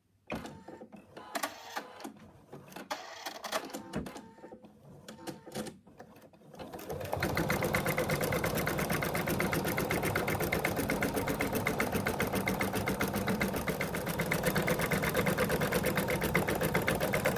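Embroidery machine stitching at a fast, even rhythm, starting about seven seconds in after several seconds of irregular clicks and rustles.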